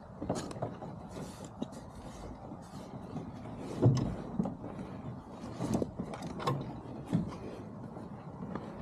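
Steady road rumble inside a moving car, with irregular clicks and knocks, the loudest about four seconds in.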